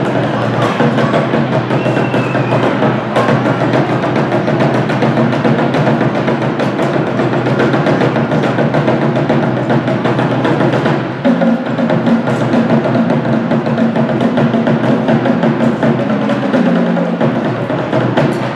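Live drumming on a large drum, rapid steady beats.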